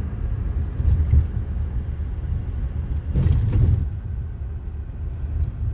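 Steady low rumble of engine and road noise inside a moving truck's cab, with a brief louder rush about three seconds in.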